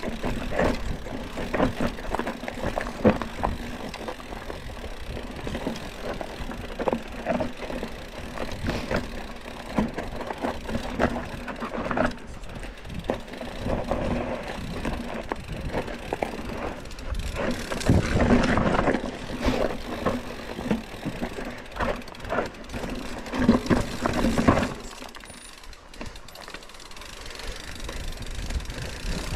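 Mountain bike descending a rough dirt singletrack: tyres rolling over dirt, roots and rocks, with the frame and parts rattling and frequent sharp knocks from the bumps. It goes quieter for a few seconds near the end.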